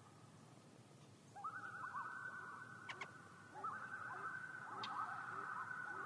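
Common loon giving its quavering tremolo call, a rapid wavering warble that starts about a second and a half in. A second quavering line joins about two seconds later and both carry on.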